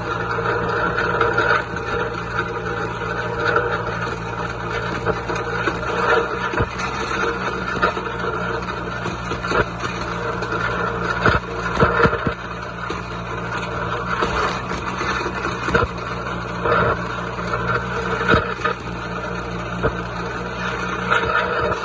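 John Deere 2130 tractor's diesel engine running steadily, with scattered clicks and rattles.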